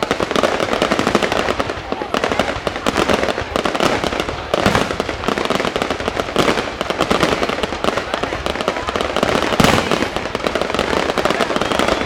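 Aerial fireworks going off continuously: dense crackling and popping, with louder bangs about four and a half, six and a half and nine and a half seconds in.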